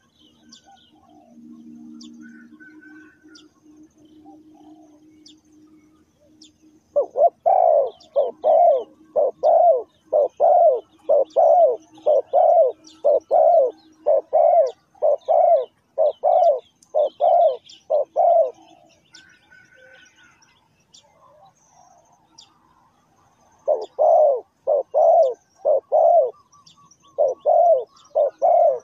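Spotted dove cooing in a long run of short, evenly spaced coos, about two a second, breaking off for a few seconds and starting again near the end. Small birds chirp faintly in the background, and a faint low hum sits under the first part.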